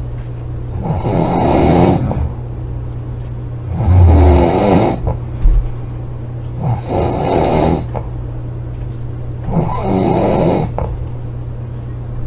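A sleeping person snoring loudly, four heavy rasping snores about three seconds apart, each lasting about a second. A steady low hum runs underneath.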